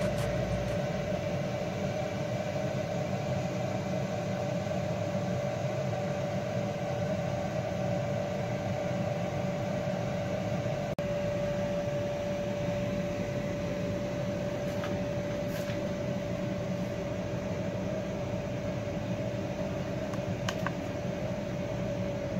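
AC Infinity Cloudline Lite 4-inch inline duct fan running steadily, with a constant motor whine over the low rush of air through the ducting.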